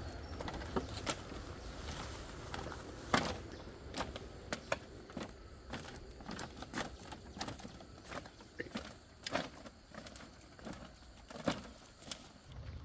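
Scattered light clicks and knocks at an irregular pace, a few sharper than the rest, about three seconds in and near the end, over a faint hiss.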